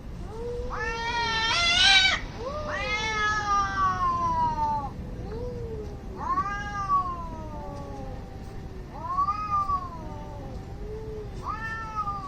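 Two domestic cats yowling at each other in an angry standoff. Long, drawn-out calls that fall in pitch, one cat higher and one lower, overlapping and trading off every second or two. The loudest call comes about two seconds in.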